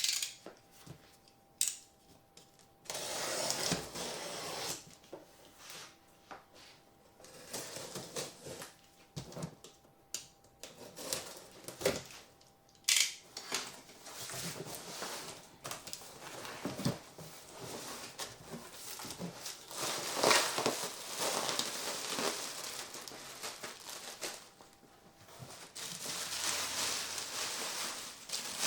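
Packaging being handled and unpacked: irregular rustling and crinkling of wrapping material, with scattered clicks and knocks.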